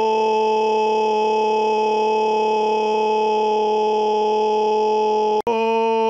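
A loud scream held on one steady pitch. It breaks off for a split second about five and a half seconds in, then carries straight on at the same pitch.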